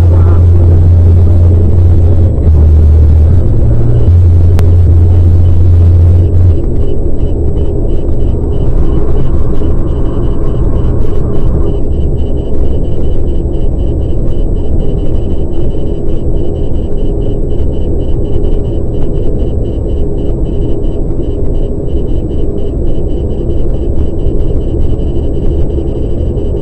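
Car cabin road rumble at highway speed, very loud and deep for the first six seconds. About twelve seconds in, a Valentine One radar detector starts its alert, a quick train of high-pitched beeps, in answer to a constant-on Ka-band radar signal.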